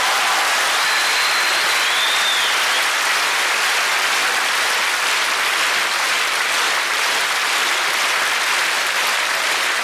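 A large theatre audience applauding steadily, a dense even wash of many hands clapping.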